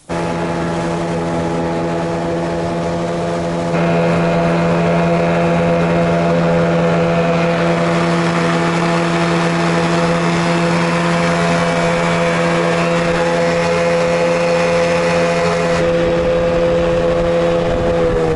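Engine running at a steady speed, with a steady multi-toned hum; it steps up louder and brighter about four seconds in.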